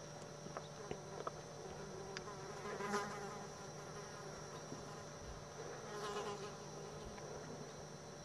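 Insect buzzing, swelling louder twice as it comes close, about three and six seconds in, over a faint steady hum.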